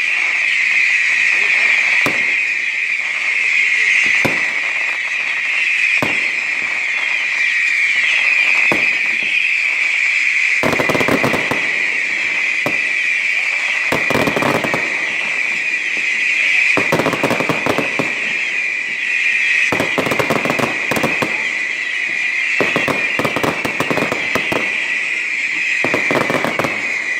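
Fireworks going off: single sharp bangs every couple of seconds at first, then from about ten seconds in, rapid clusters of crackling reports, each lasting a second or two, over a steady high-pitched hiss.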